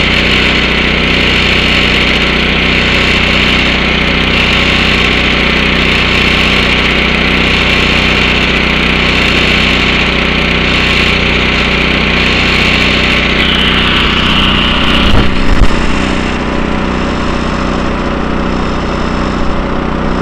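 Engine-driven portable high-pressure air compressor running steadily while it fills a paintball air tank through its fill hose, a hiss over the drone of the engine and pump. About fifteen seconds in there is a brief louder knock, after which the hiss eases a little.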